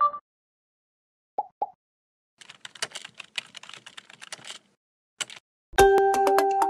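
Computer keyboard typing sound effect: a quick run of key clicks lasting about two seconds, after two short pops and followed by a single click. Near the end, louder music with ringing, chime-like notes comes in.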